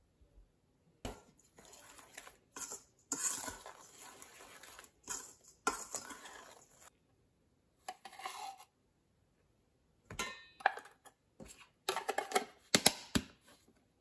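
Chopped walnuts poured from a cup into a stainless steel mixing bowl of flour, a loose rustling patter, then a metal spoon scraping and clinking against a tin and the bowl, with a quick run of sharp clinks near the end.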